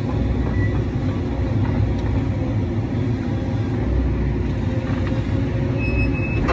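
Excavator's diesel engine running steadily under load, heard from inside the cab as the machine swings and dumps a bucket of dirt.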